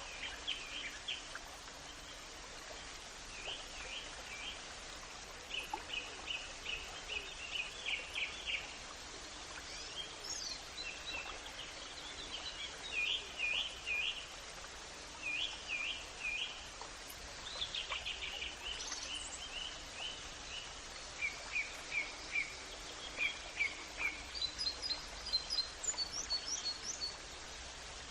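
Songbirds calling in short, quick runs of chirps, one phrase after another, over a steady background hiss of outdoor ambience.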